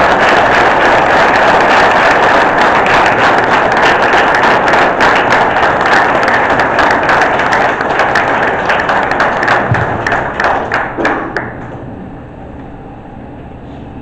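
Congregation applauding: dense clapping that thins into scattered separate claps and dies away about twelve seconds in.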